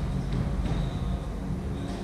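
Steady low rumble of a squash court's room noise, with a faint thin squeak, likely shoes on the wooden floor.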